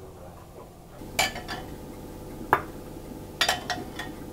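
A metal spoon clinking against a glass cooking pot while stirring vinegar-and-sugar pickle brine: several sharp clinks, the loudest about two and a half seconds in, over a faint steady hum.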